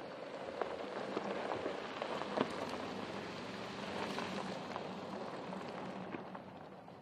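Porsche Cayenne Turbo's tyres crunching over a loose gravel dirt track: a gritty hiss dotted with sharp ticks of flung stones, with the engine low underneath. It swells, then fades near the end as the SUV pulls away.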